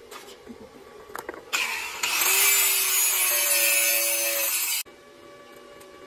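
Angle grinder cutting a thin steel bar: a loud, harsh grinding over the motor's steady whine, starting about one and a half seconds in and cutting off suddenly near five seconds. A few light clicks come before it.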